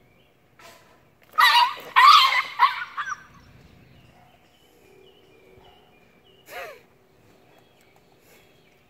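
Puppy yelping after a run-in with a cat: a rapid burst of sharp, harsh cries lasting about a second and a half, then one more falling cry a few seconds later.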